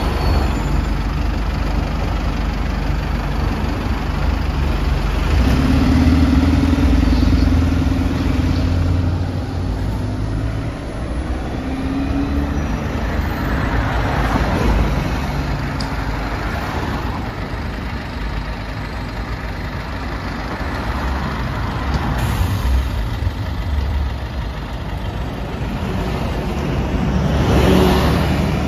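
Buses and cars passing on a busy city road: engines run with a constant low rumble, with a steady hum from about five to nine seconds in. Tyre and engine noise swells as vehicles pass close, around the middle and again near the end.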